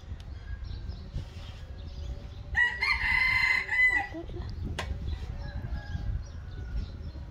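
A rooster crowing once, a call about a second long that drops in pitch at the end, starting between two and three seconds in. A single sharp click follows about a second later.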